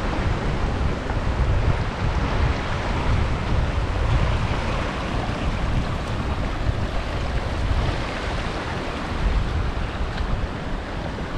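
Wind buffeting the microphone with a fluctuating low rumble, over the steady rush of a shallow stream running across a stony riverbed.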